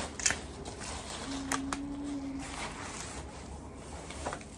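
An umbrella being closed: a sharp click and the rustle of its fabric canopy at the start, then scattered clicks and rustles as items are handled. A brief low steady hum sounds for about a second, a little over a second in.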